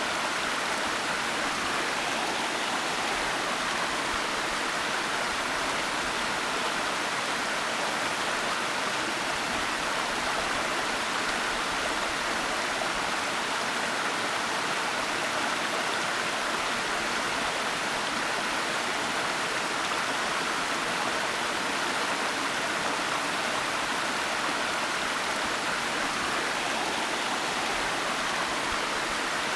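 Waterfall: falling water rushing in a steady, unchanging hiss with no breaks or separate splashes.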